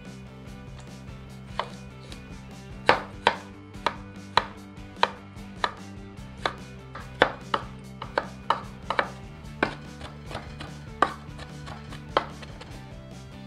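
Cleaver chopping onion and then tomato on a wooden cutting board: sharp knocks of the blade on the wood at an uneven pace, about two a second, starting about a second and a half in.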